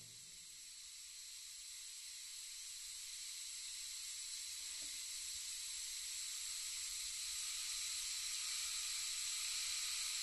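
Steady, high-pitched hiss that slowly grows louder, with no distinct events in it.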